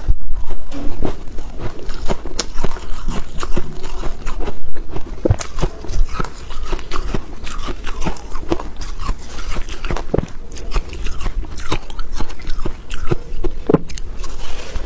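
Close-miked crunching and chewing of soft, powdery pink frozen ice, with many irregular crisp crackles. Near the end there is a fresh bite into a chunk.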